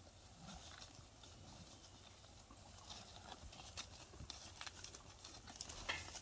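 Cattle feeding at a round hay bale: faint, scattered rustling and crunching of hay being pulled and chewed, with hoof steps on dry ground. It grows busier in the second half.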